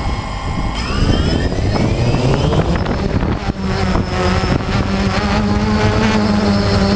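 A small FPV drone's electric motors and propellers spin up, their whine rising in pitch over a second or two as it lifts off the ground, then holding a steady whine. It is heard close-up from the camera mounted on the craft, with rushing air.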